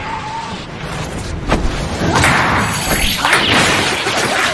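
Stylised anime sound effects of a very fast table tennis rally: rushing whooshes and hard impacts, getting louder about two seconds in.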